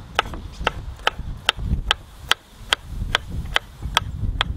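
Chef's knife dicing pickled gherkins on a wooden cutting board: a steady run of sharp knife strikes against the board, about two and a half a second.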